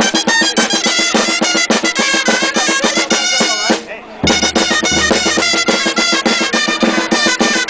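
Gralles, Catalan double-reed shawms, playing a lively tune together over snare-drum rolls and bass-drum beats. The music breaks off briefly about four seconds in and starts again with a deep bass-drum thump.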